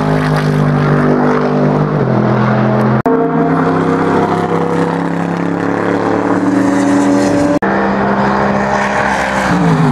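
Mercedes-Benz SLS AMG GT3's naturally aspirated 6.2-litre V8 race engine running hard at high revs as the car goes by on track. The note drops abruptly about two seconds in and glides down near the end, and the sound breaks with sudden cuts about three and seven and a half seconds in.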